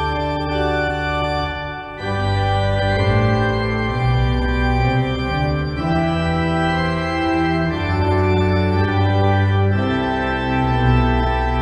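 Organ music: slow, sustained chords that change every couple of seconds, with a short break about two seconds in.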